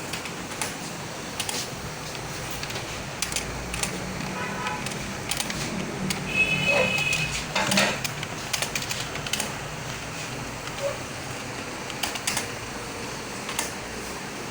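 Computer keyboard keys being pressed in an uneven run of sharp clicks. A short voice-like sound with a brief tone comes about the middle.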